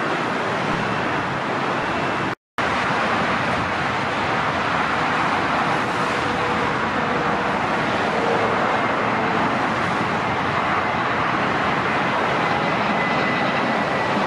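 Jet airliner engines running, a steady rushing roar with a faint high whine. The sound cuts to silence for a split second about two and a half seconds in.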